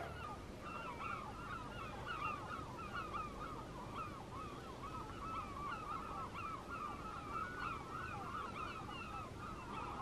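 A distant flock of birds calling: many short overlapping calls, several a second, keeping up without a break.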